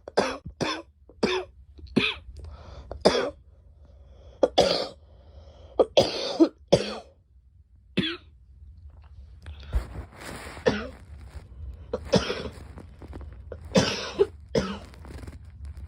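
A girl coughing repeatedly: a quick run of short coughs in the first three seconds, then more coughs at irregular gaps of a second or two.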